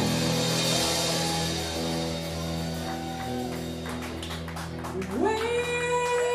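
A live band's last chord ringing out through the amplifiers and slowly fading, then about five seconds in a woman's voice slides up into one long held sung note.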